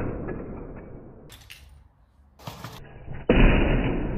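Lego Technic Nissan Skyline R34 model crashing into a wall: the clatter of plastic parts from one impact dies away over about two seconds, then a second sudden crash about three seconds in, trailing off in rattling pieces.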